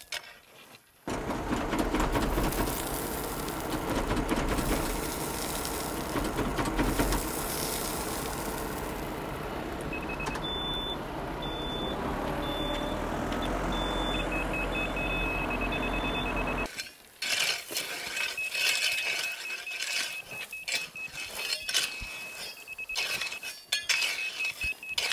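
A tractor engine running while a load of gravel pours from its bucket, a dense rattling rush over a low rumble that cuts off suddenly about 17 seconds in. Then a rake scrapes through gravel, while a grade-rod laser receiver beeps in short, evenly spaced pulses.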